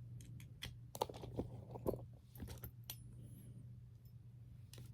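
Small fidget toys being handled and gathered up, giving scattered light clicks and rattles as they knock against each other and the surface, thickest in the first few seconds. A faint steady low hum runs underneath.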